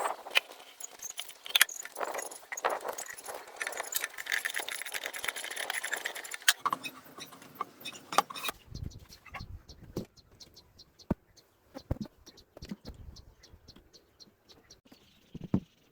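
Workbench handling noise: small metal parts and tools rattling and clicking densely. About eight and a half seconds in it changes abruptly to sparse knocks and dull thuds, then a run of quick, even ticks, about four to five a second.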